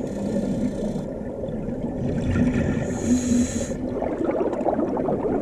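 Scuba regulator breathing underwater: two hissing breaths in, one at the start and one just past the middle, over a steady low bubbling rumble of exhaled air.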